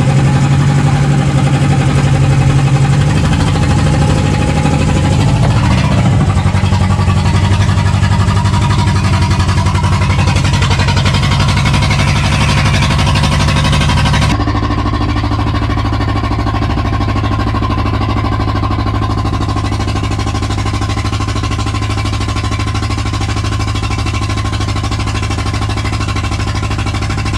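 Motorcycle engine running steadily on a ride, with an abrupt change in its sound about halfway through.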